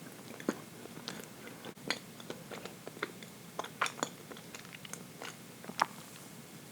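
Close-up mouth sounds of someone chewing rich chocolate cake: irregular soft wet clicks and smacks, the sharpest one near the end.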